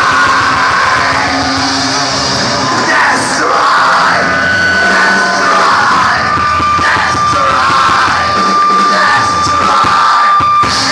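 Punk rock band playing live and loud through a venue PA, with yelling over the music. A high note is held steadily for several seconds in the second half.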